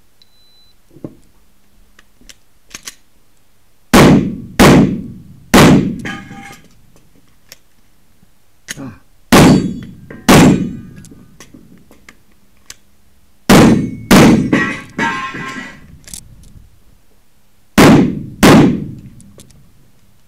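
Glock 17 9 mm pistol firing nine shots, mostly in quick pairs with a pause between groups, each shot echoing off the walls of an indoor range. A few faint clicks come before the first shot.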